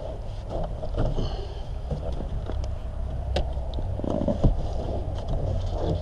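Plastic interior trim panels in a van being handled and pulled by gloved hands: scattered light clicks, knocks and rubbing over a steady low rumble.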